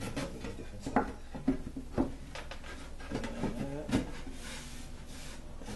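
Wooden drawer parts being handled and pressed together: a few sharp knocks of wood on wood between quieter rubbing, then a brushing sound near the end.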